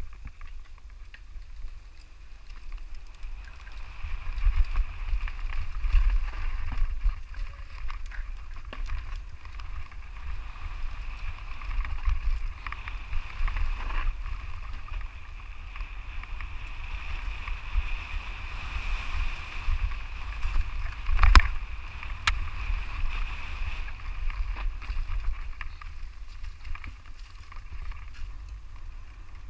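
Mountain bike riding fast down a dirt and stone singletrack: a steady low rumble of wind on the microphone and tyres over rough ground, with scattered knocks and rattles from the bike over bumps. One sharp knock about two-thirds of the way through is the loudest.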